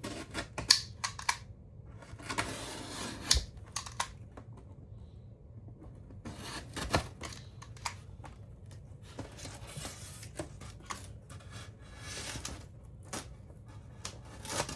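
Scattered clicks, taps and short scraping rustles of cut foam board pieces being handled and worked at a craft table.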